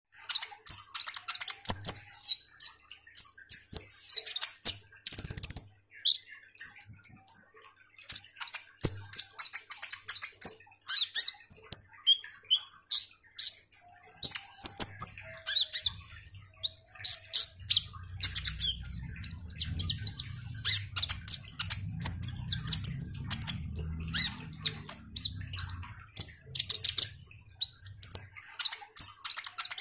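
Caged male kolibri ninja sunbird in full song: rapid, thin, high chirps and short twittering trills, one after another with only brief gaps.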